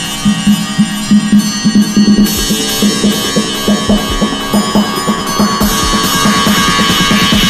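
Background music with a steady pulsing beat that builds in intensity, leading into a drum kit.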